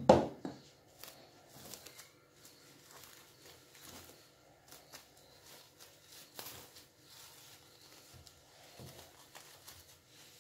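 A sharp thump at the start, then faint, scattered crinkling and rustling of plastic cling film as hands handle a bundle wrapped in cloth and film.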